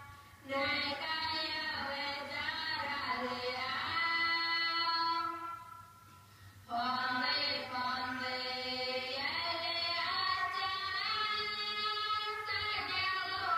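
Music with a singing voice. The singing stops for about a second around six seconds in, then carries on.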